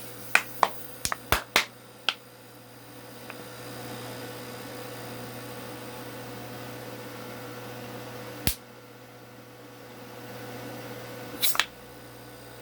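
Window air-conditioner compressor, rigged as a vacuum pump, running with a steady hum. Sharp crackling snaps come in the first couple of seconds, one about two-thirds of the way in, and a few more near the end: a plastic bottle buckling as the pump draws it down under vacuum.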